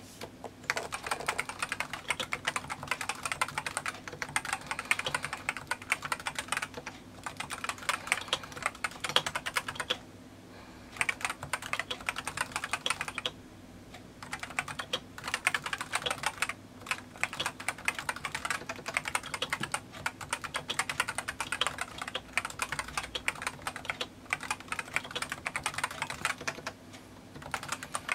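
Typing on a Realforce RGB keyboard with Topre electrostatic capacitive switches: fast, continuous keystrokes, broken by a few short pauses.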